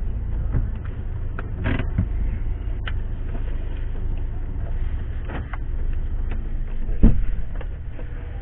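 Ambulance driving slowly, heard from inside the cab as a steady low rumble with scattered knocks and clicks; a single loud thump about seven seconds in.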